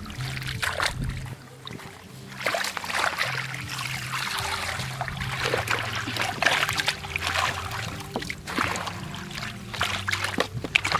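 Water splashing and sloshing in shallow water, in irregular strokes that grow busier about two seconds in, over a low droning tone that shifts pitch in steps.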